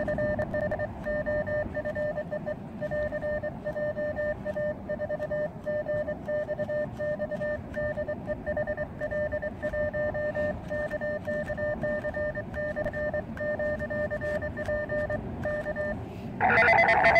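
Morse code sidetone from an Elecraft KX2 transceiver as a CW message is hand-keyed on its paddle: one steady beep broken into short and long elements. The message gives the operator's name and closes with both call signs and 'K', handing the contact back to the other station. Near the end a louder sound with several tones cuts in.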